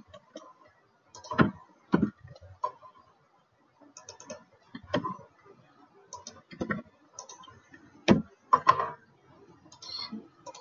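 Computer keyboard typing with mouse clicks: irregular keystrokes with a few louder taps.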